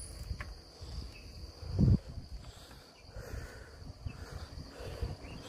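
Wind buffeting the microphone of a camera riding on a moving bicycle, in uneven low rumbles with one louder gust about two seconds in, over a steady high insect buzz like crickets in the roadside scrub.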